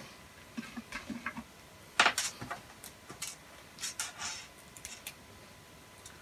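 Scattered light clicks and metallic clatter of a meter's ground probe lead being clipped onto an AV receiver's metal chassis, with one sharper knock about two seconds in.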